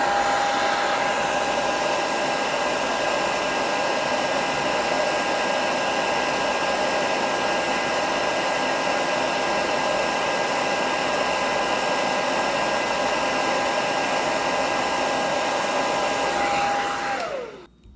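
Handheld hot-air blower running steadily with a constant fan whine, heating the camera lens area to soften the old adhesive. Near the end it is switched off and the whine falls away.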